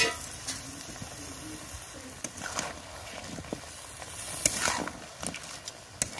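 Crab and potato curry sizzling in a metal kadai while a metal spatula stirs and scrapes through it, with a few louder scrapes past the middle.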